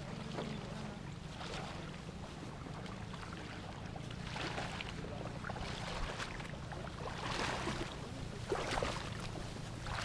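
Footsteps wading through a flooded rice paddy, splashing in the shallow water and brushing through rice stalks as a series of irregular swishes, over a steady low rumble.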